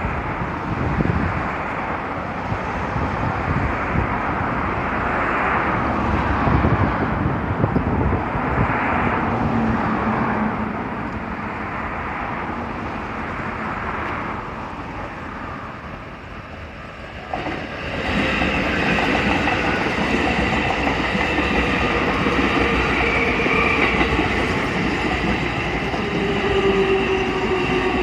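Keikyu electric commuter trains passing over a level crossing, wheels clattering over the rail joints. About two-thirds of the way in, the sound changes sharply and steady whining tones come in, one of them slowly falling in pitch.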